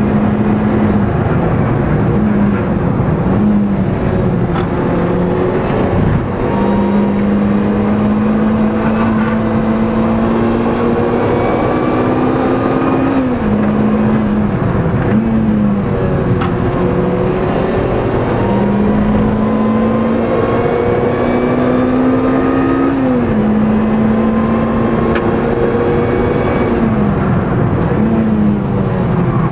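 Lotus Exige S engine at speed on track, heard from inside the cabin. The engine note climbs slowly, then drops sharply at each gear change or lift, about half a dozen times, over a steady rush of road and wind noise.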